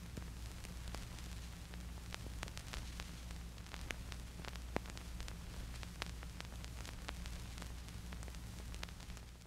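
Steady low hum and hiss with scattered crackles and pops: the surface noise of an old film soundtrack, imitated for a vintage look.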